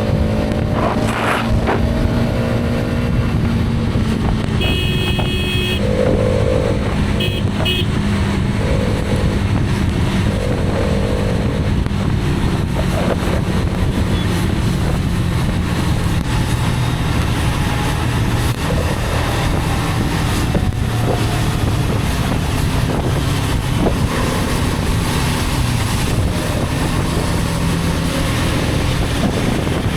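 A Hero Karizma XMR's single-cylinder engine running steadily at cruising speed, with wind and road noise. Vehicle horns honk several times in the first dozen seconds, including two short beeps about seven seconds in.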